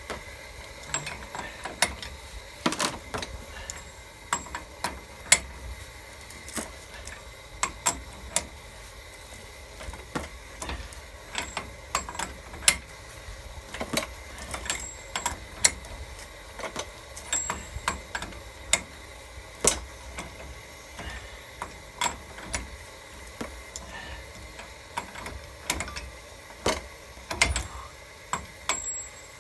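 Hand ratchet clicking in short irregular runs, a few sharp clicks a second, as a stubborn wheel hub mounting bolt is slowly backed out.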